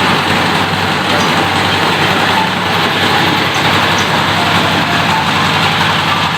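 Meatball grinding machine running steadily, a loud continuous mechanical drone with a low hum underneath.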